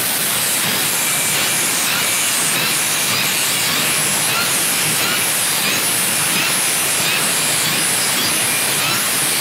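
Cordless circular saw with a Crescent NailSlicer carbide-tipped blade running steadily under load, cutting along a board through a line of embedded nails, with faint ticks about twice a second.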